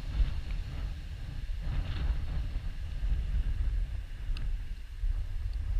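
Wind buffeting a GoPro's microphone, a steady low rumble with no break.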